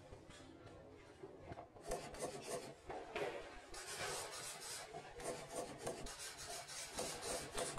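Many press photographers' camera shutters firing in rapid bursts of clicks, thin at first and growing much busier about two seconds in, over the rustle of people moving.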